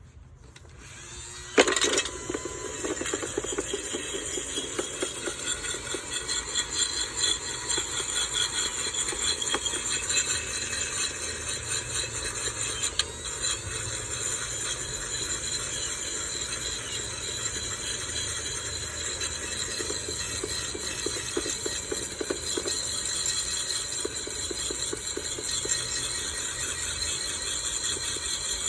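Dremel rotary tool starting up about a second and a half in, then running steadily at high speed as its brush scours surface rust off a metal toy.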